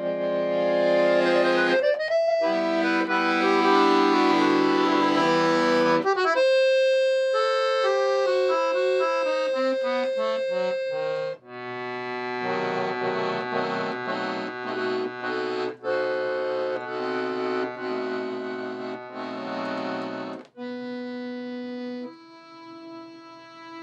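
Accordion playing a chamamé piece, with sustained chords and melody lines. It pauses briefly about 11 seconds in and again about 20 seconds in.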